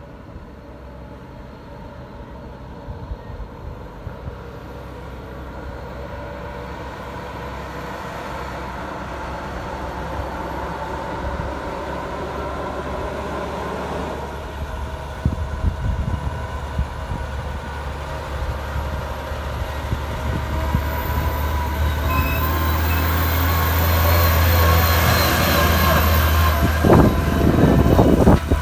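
Diesel tractor-trailer tanker truck approaching and passing through a hairpin bend. Its engine drone grows steadily louder as it nears, with a few short knocks near the end as it goes by close.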